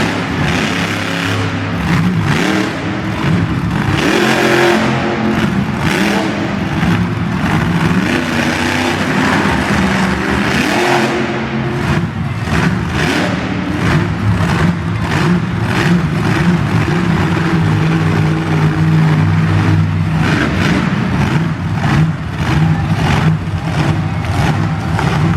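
Monster truck engine running loud and revving hard, the throttle opening and closing repeatedly.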